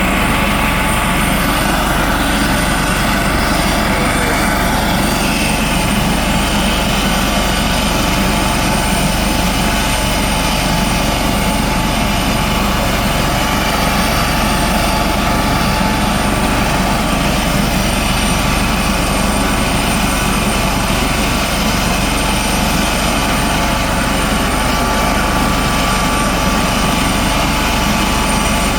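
Coast Guard helicopter running loud and steady, its rotor and engine noise unbroken, with a few thin steady tones over it.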